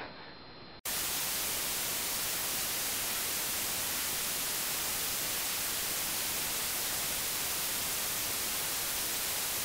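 Steady static hiss, like white noise, that cuts in abruptly about a second in after a moment of faint room tone and holds at one level.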